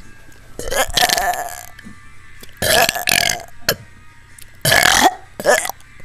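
A boy belching loudly on purpose, a run of burps: three long ones, the first about half a second in and lasting about a second, with short ones in between.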